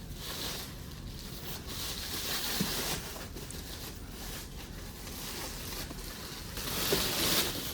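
Rustling and handling of monitor packaging as the monitor is unboxed, with a louder stretch of rustling near the end.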